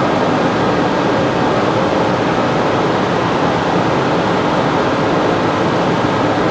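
Steady, loud running noise of a car ferry's engine-room machinery, an even mechanical rush with no breaks or changes.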